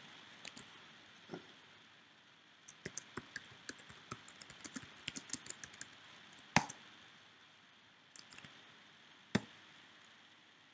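Typing on a computer keyboard: a quick run of short keystrokes lasting a few seconds, then a single louder click in the middle and another near the end.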